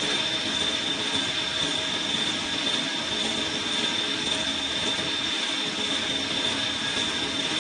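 Metal lathe turning a large 1.4301 (304) stainless steel pipe, the cutting tool taking a continuous cut along the surface. A steady machine noise with a constant high whine over it, unchanging throughout.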